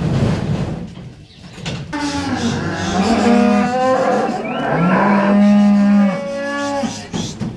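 Beef suckler cattle mooing: several overlapping moos, with one long steady call about five seconds in.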